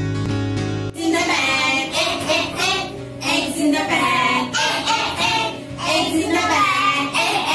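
Plucked acoustic guitar music cuts off about a second in. Young children then sing together in a classroom, with a woman's voice singing along.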